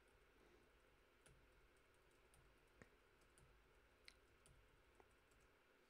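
Near silence broken by a handful of faint, scattered computer-keyboard key presses as lines of code are indented.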